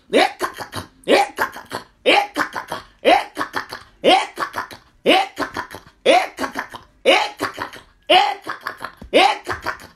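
A woman's voice chanting forceful, wordless syllables in a steady rhythm, one shouted burst about every second with quick clipped syllables trailing each: fervent prayer in tongues.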